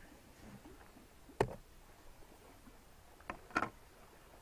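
Light knocks of plastic bowl lids and dishes handled on a wooden picnic table: one sharp knock about a second and a half in, then two more close together near the end.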